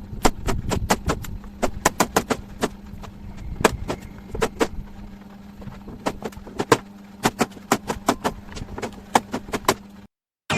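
Hammering on wood: a long string of sharp knocks, several a second in uneven runs with short pauses, over a steady low hum. It cuts off abruptly about ten seconds in.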